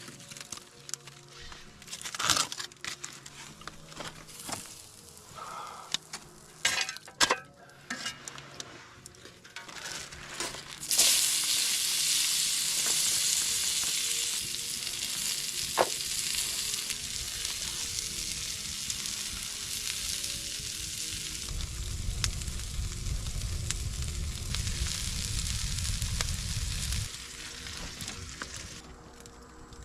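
Tomahawk steak sizzling loudly in a hot pan, starting suddenly about a third of the way in when the meat goes down and dying away near the end. Before it, a few knocks and clatters of cookware being handled.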